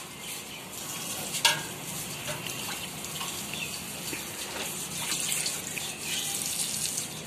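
Water sloshing and splashing as a small bowl is dipped into a steel tub of water and poured out, with one sharp tap about a second and a half in.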